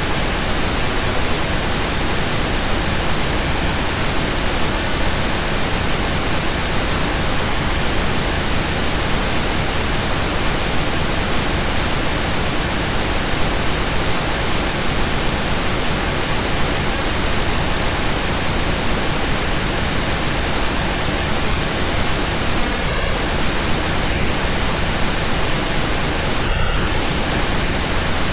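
Steady, even hiss of a pink-noise-like relaxation sound track. Faint high chirps recur every two seconds or so, with a faint high trill now and then.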